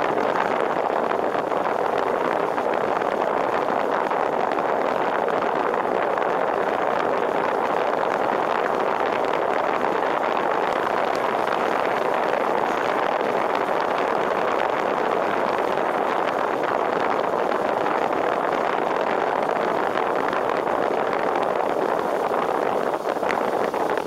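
Steady rush of wind and wet-road tyre noise from a car driving at a constant speed, picked up by a camera mounted outside on the car.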